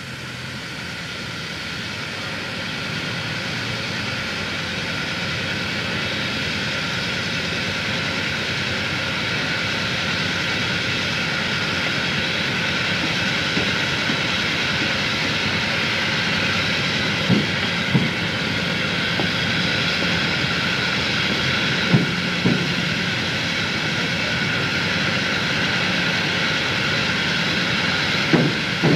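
Cars driving onto a chain ferry's loading ramp, each car's front and rear wheels thumping in turn over the ramp edge: three pairs of knocks, each pair about half a second apart. Under them is a steady rushing drone that slowly builds after the start.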